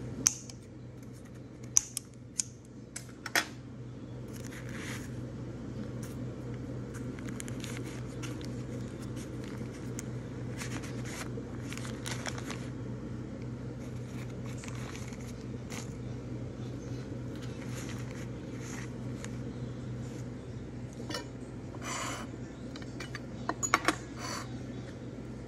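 Scissors snipping the string ties of steamed pasteles and parchment paper rustling as they are unwrapped, with a few sharp clicks in the first few seconds and a cluster of them near the end, over a steady low hum.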